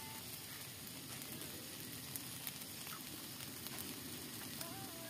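Food frying in a wok: a steady sizzling hiss with scattered small pops and crackles.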